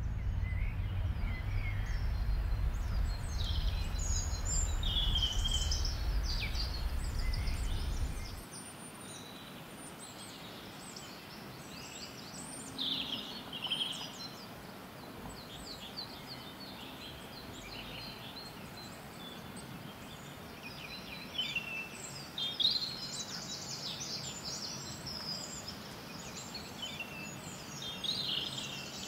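Small birds chirping and singing, many short calls throughout. They sit over a low, steady city rumble that cuts off about eight seconds in, leaving a quieter outdoor ambience.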